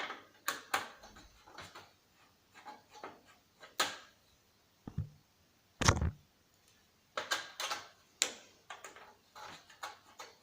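Irregular clicks and knocks of plastic and metal parts of a CRT TV/DVD combo being handled and pulled apart, with a heavier knock about six seconds in.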